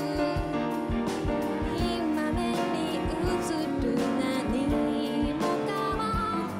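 Live band music: a woman singing into a microphone over piano, cello, violin and drums, with a steady low beat.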